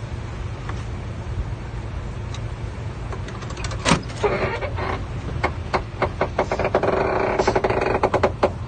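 Heavy machinery at work, the bulldozer's engine rumbling low and steady. Sharp metallic clanks start about halfway, with one loud knock. Near the end they thicken into a fast rattle over a grinding whine.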